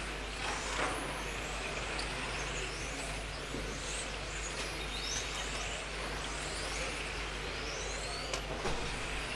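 Several 1:10 electric RC touring cars racing round the track, their motors giving high whines that rise and fall in pitch as the cars pass, over a steady hiss.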